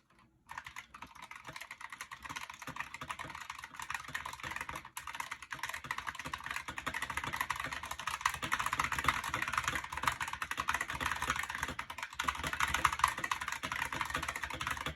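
Fast typing on a Razer Huntsman V3 Pro Mini keyboard with Razer optical switches: a dense, rapid clatter of keystrokes, very loud, that picks up speed and grows louder after about six seconds.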